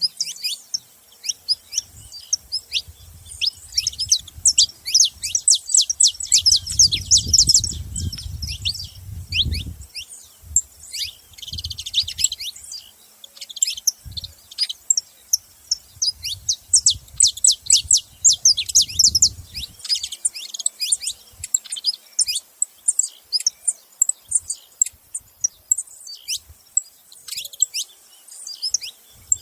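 Saffron finches chirping at a feeder: quick, high chirps that sweep down in pitch, coming in rapid runs with short pauses between.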